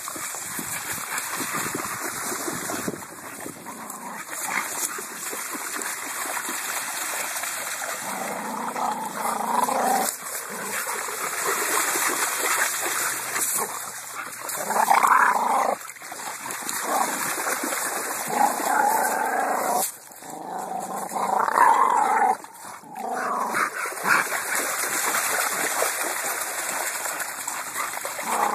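American Bully dogs play-growling in short spells several seconds apart while tugging on a stick together, over a steady splashing hiss from the creek water they stand in.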